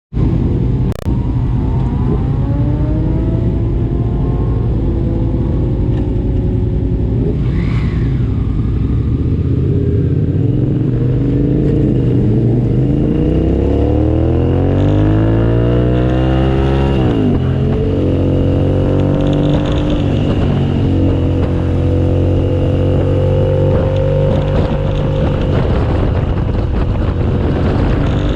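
2007 Suzuki SV650S's 645 cc 90-degree V-twin engine running hard on track. The revs swing up and down, climb steadily for several seconds, then drop sharply about 17 seconds in. A brief click comes about a second in.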